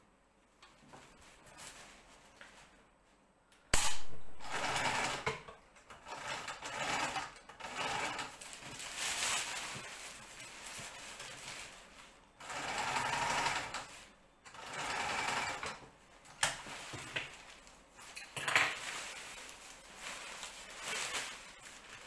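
Domestic sewing machine stitching nylon kite fabric in stop-start runs of a second or two, starting about four seconds in, with the slippery nylon rustling as it is fed through and moved about.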